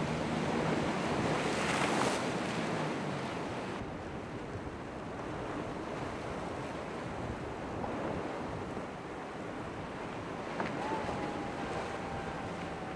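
Surf washing and waves breaking, with wind buffeting the microphone; the wash swells loudest about two seconds in. A boat engine drones low in the first few seconds, and a thin steady whine comes in near the end.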